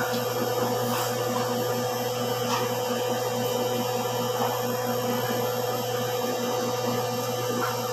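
A steady electric motor hum with a constant tone runs throughout, with a few faint clicks and taps as chicken is picked apart in a plastic food tray.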